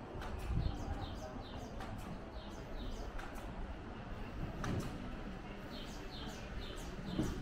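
Small birds chirping in short, falling high notes, in quick runs of two or three, over a steady low background rumble of outdoor ambience.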